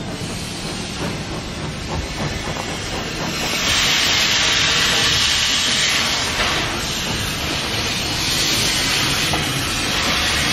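Small steam tank locomotive moving slowly, steam hissing from its cylinders over a low rumble. The hiss swells loudly about three and a half seconds in, eases, then rises again near the end.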